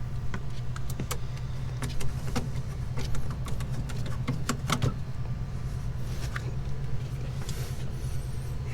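Scattered sharp metallic clicks and clinks of hand tools and hose-clamp hardware being worked, over a steady low hum.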